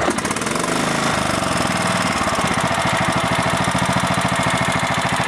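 Kohler lawn mower engine running steadily and firing evenly, just after starting; with its new ignition coil it is hitting again.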